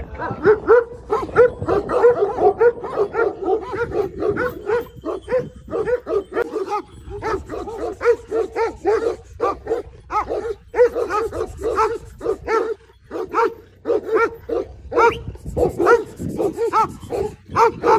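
Dog barking rapidly and over and over, about three or four barks a second, without a break.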